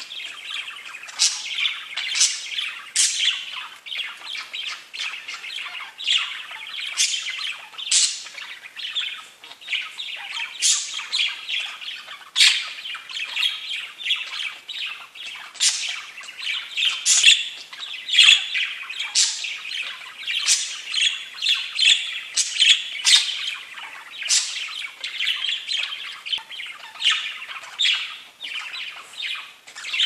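Pet budgerigars warbling and chattering without a break, laced with frequent sharp chirps and squawks.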